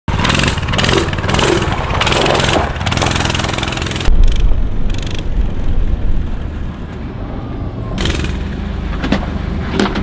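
Mini bike's small engine running as it is ridden off. About four seconds in, after a sudden cut and a thump, a low rumble from inside a vehicle's cab as it follows the mini bike down a dirt track.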